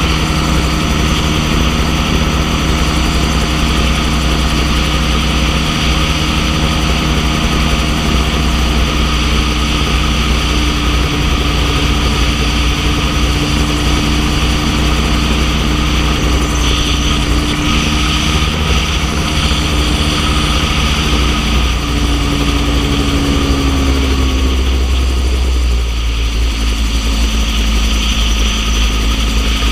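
Gyrocopter's engine and pusher propeller running steadily in flight, with wind noise on the outside-mounted microphone. About three-quarters of the way through, the engine note drops to a lower pitch as power is reduced.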